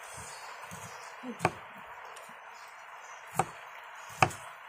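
Three short, sharp crunches, a second or more apart, from biting into crisp kedondong (ambarella) fruit; the third is the loudest.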